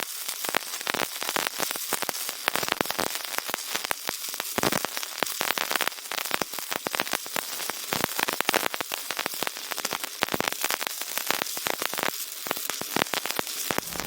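Soldering flux and solder sizzling and crackling under a hot iron: a dense, irregular stream of sharp little pops over a steady hiss.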